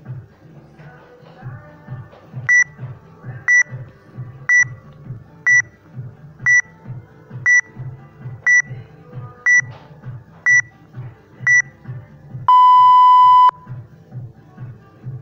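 Workout timer app counting down to the start of a work round: ten short high beeps, one a second, then a long lower beep that marks the start. Background music with a steady beat runs underneath.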